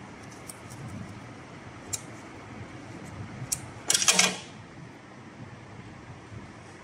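A few light clicks of scissors snipping thread, then a short metallic clatter about four seconds in as the steel scissors are set down on the sewing machine's metal table.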